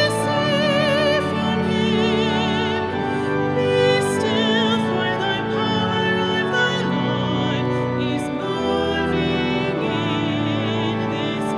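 Music: sustained low notes under a high melody with wide vibrato.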